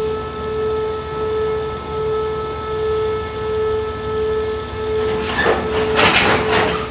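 Freight train with a diesel locomotive passing slowly: a steady drone that swells and fades about once a second. Near the end there is a loud burst of metallic clatter and screech from the wagons' wheels on the rails.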